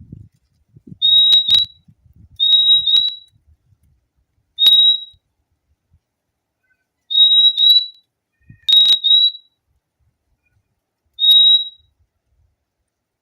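Purple-throated euphonia (fim-fim) calling: short, high, clear whistled notes, mostly in quick pairs ("fim-fim"), repeated about six times with pauses of a second or more between.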